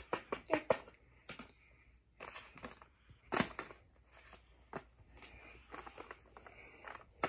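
Toys being picked up, slid and set down on a paper sheet lying on carpet: paper rustling and crinkling with a few light knocks, the sharpest about three and a half seconds in.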